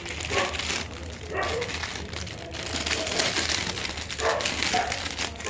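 Rustling and crinkling of a sweatshirt and its plastic packaging being handled, with a few short calls in the background.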